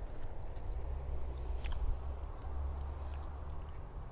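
A steady low rumble with a few faint, scattered clicks.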